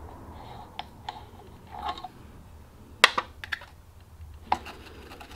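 Scattered light clicks and clinks of metal parts being handled as the left-hand-threaded nut holding the grinding wheel on an automatic chainsaw chain sharpener's head is worked loose. The sharpest click comes about three seconds in.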